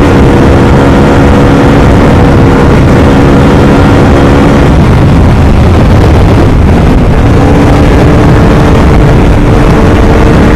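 Bajaj Pulsar RS200's single-cylinder engine held at a steady high note at speed, heard from the saddle under heavy wind rush. About halfway the engine note drops out into the wind, then returns at a slightly lower steady pitch.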